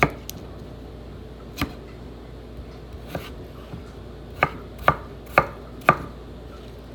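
Knife chopping vegetables on a cutting board: a few single cuts spread out, then four quicker chops about half a second apart near the end.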